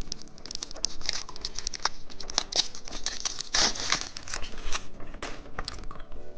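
Plastic candy packaging crinkling and tearing as it is opened. It makes a dense run of crackles that is busiest from about two and a half to nearly five seconds in.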